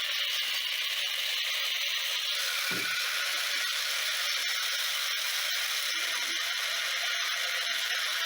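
Small 3D-printed gearbox running on its electric motor, the plastic gears giving a steady whirring rattle, with one soft low knock about three seconds in.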